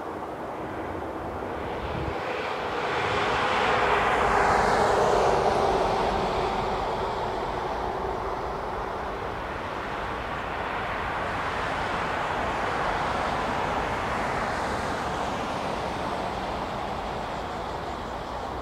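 Airbus A380's four jet engines heard from a distance as it lands: a broad rushing roar that swells to its loudest about four to six seconds in, eases off, then rises again more gently as the aircraft settles onto the runway.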